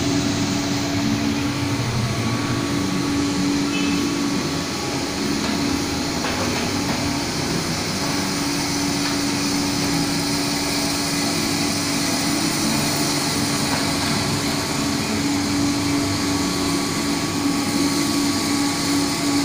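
Small drum coffee roaster running: a steady mechanical drone with a constant low hum over an even hiss.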